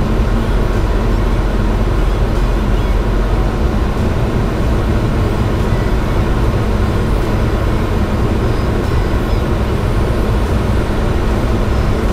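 Steady rush of airflow and jet engine noise heard inside a Boeing 737-900 cockpit on approach to landing.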